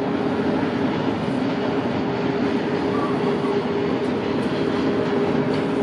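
Freight train of tank wagons rolling past on the rails: a steady, even rumble with a low hum running through it.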